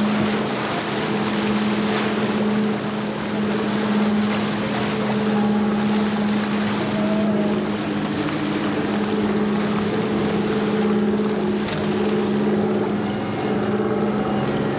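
A boat engine running steadily at one pitch, with wind and water noise.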